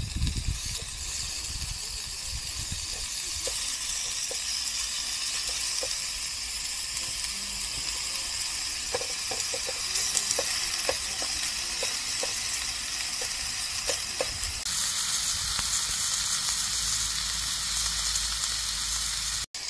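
Pork jowl (hangjeongsal) sizzling on an electric grill: a steady frying hiss with small pops of spattering fat here and there.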